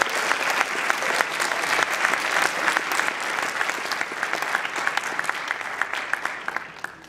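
Audience applauding: a dense patter of many hands clapping that gradually thins out and dies away near the end.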